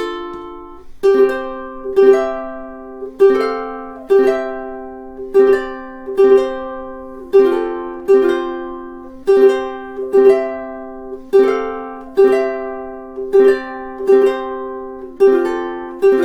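Uluru Lehua III all-solid koa tenor ukulele strummed in a slow, even rhythm, about one chord a second, each chord left to ring out before the next; the chord changes every few strums.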